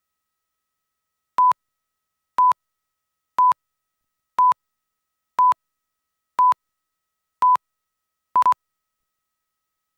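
Countdown beeps on a commercial's leader slate: eight short beeps of one steady pitch, one a second, ticking off the count from 10 down to 3.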